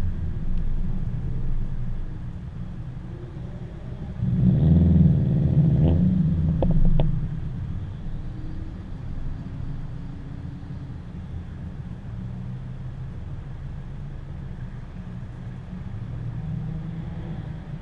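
Wind rumbling on the microphone over the engines and exhausts of cruising Subarus. About four seconds in, a car's engine grows louder and rises in pitch as it accelerates for a few seconds, then drops back under the wind rumble.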